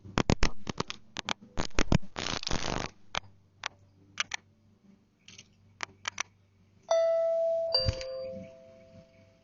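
A quick run of sharp clicks and scratches for about three seconds. Then, about seven seconds in, a two-tone doorbell chime sounds: a ding followed by a lower dong that rings on and fades. The doorbell is being set off by a bird.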